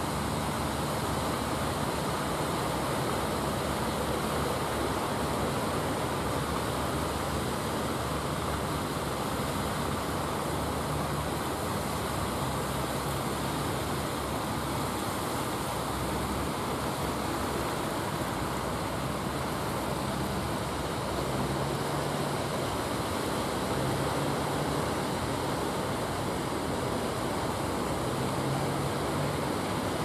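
Steady rush of surf breaking along the beach, with the low drone of a wooden fishing boat's engine coming and going underneath.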